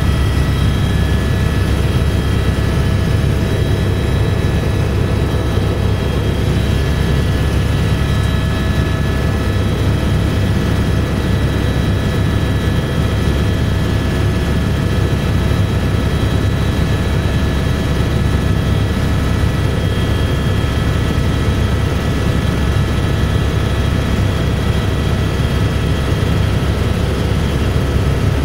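Eurocopter AS350B3 Ecureuil helicopter in cruise flight, heard from inside the cabin: the main rotor and single turboshaft engine make a loud, steady, heavy rumble, with faint steady whining tones above it.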